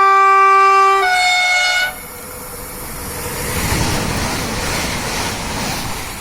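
Train horn blowing a two-tone call: a lower note for about a second, then a higher note for about a second. The passing train's rushing noise follows, swelling a couple of seconds later and then easing off.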